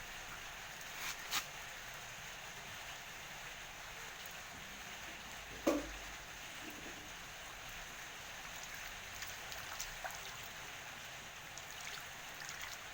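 Faint steady trickling or splashing water, with a couple of light clicks about a second in and a brief louder knock about six seconds in.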